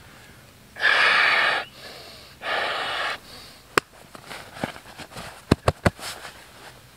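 Two long breaths blown into an Outdoor Vitals inflatable camping pillow, each a loud hiss lasting under a second, followed by a few sharp clicks and small knocks as the inflated pillow is handled.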